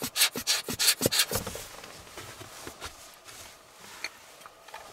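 Hand-squeezed rocket air blower puffing air into a camera body to blow dust off the image sensor: a quick run of short puffs, about five a second, over the first second and a half, then only faint handling.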